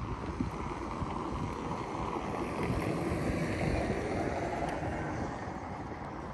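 Wind buffeting the microphone over a steady rush of sea surf, which swells for a couple of seconds mid-way.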